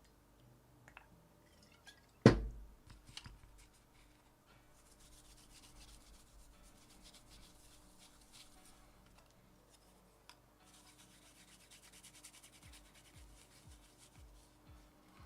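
One sharp knock about two seconds in, then two long spells of fine, rapid scraping or rubbing on the flood-damaged body control module's circuit board.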